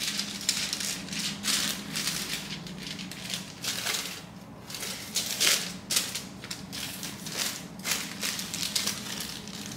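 A crumpled foil pouch crinkling and rustling as it is handled, in a run of irregular crackly rustles.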